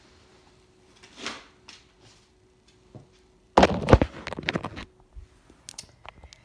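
Packaging being handled during unwrapping: a short rustle about a second in, then a loud thump followed by about a second and a half of clattering and rustling.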